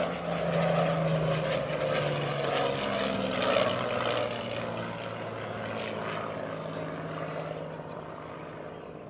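Single-engine piston propeller aircraft flying past overhead. The engine note drops in pitch and fades over the second half as the aircraft moves away.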